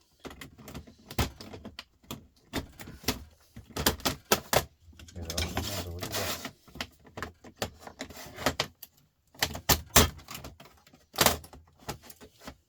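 Irregular clicks and clatter of small metal and plastic parts being handled and pried apart while a DVD drive mechanism is dismantled, with a short scraping stretch about five to six seconds in.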